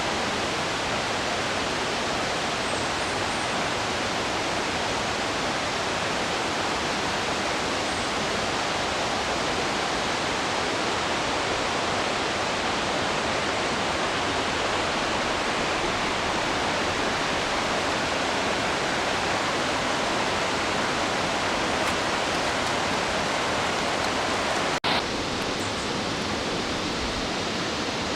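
Steady rush of fast-flowing stream water. A single sharp click comes near the end, and the rush carries on after it.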